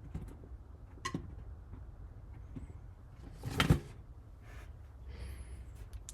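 Proffieboard lightsaber playing the Bendu sound font, with the hilt in the Prometheum sleeve: a low, steady blade hum with a short click about a second in and a louder swing sound about three and a half seconds in.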